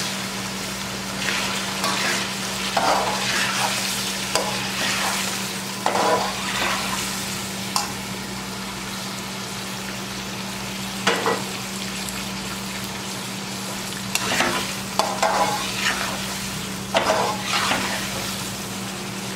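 Raw chicken pieces frying in hot oil with ginger-garlic paste, sizzling steadily while a slotted spatula stirs and turns them in strokes every second or few. A steady low hum runs underneath.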